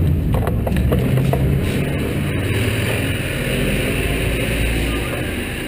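Steady low engine rumble of an armoured vehicle running nearby, with a few sharp clicks and knocks of rifle and kit being handled.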